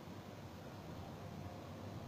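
Steady low room noise with a faint hiss; no ball or cue strikes.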